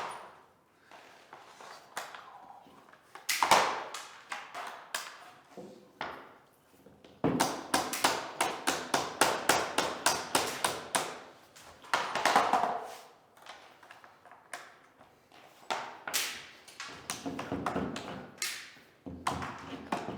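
Vinyl click-flooring planks being tapped into place: a single heavier knock, then quick runs of sharp taps, about four a second.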